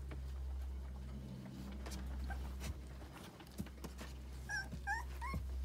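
Newborn husky puppies squeaking: four or five short, high whimpers near the end, hungry cries before nursing, over a steady low hum.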